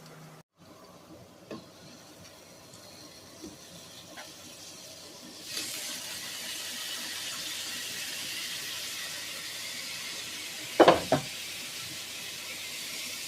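Kitchen sounds: a few light knocks, then a steady hiss that starts suddenly about five and a half seconds in and runs on, with two loud clatters of cookware close together near the end.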